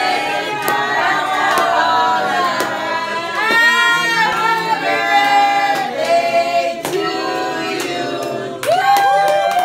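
A group of family voices singing a birthday song together to the girl as the lit cake is brought to her, with long held notes.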